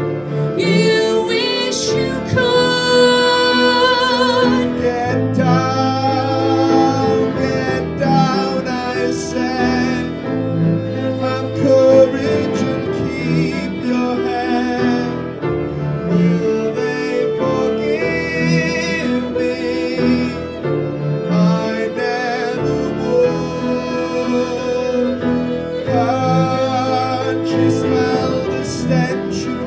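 Live band playing a slow song: a cello with vibrato carries the melody over bass guitar and piano, with a woman singing at times.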